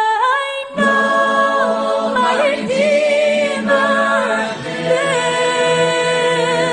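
Gospel song in a vocal passage: held and gliding sung notes with choir harmonies.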